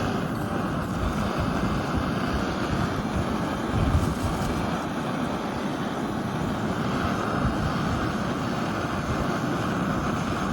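Coleman 508A gasoline single burner running, a steady roaring hiss of the pressurised flame, here fuelled with red motor gasoline.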